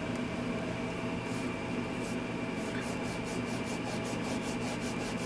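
Terry-cloth rag rubbing polish on a plastic nut driver handle in quick back-and-forth strokes, several a second, starting about a second in. The rag is working off the crumbling residue of the degrading plastic.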